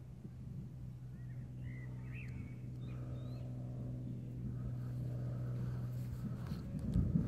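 A vehicle engine running steadily, a low even hum. Birds chirp a few times in the first half, and a brief low thump comes near the end.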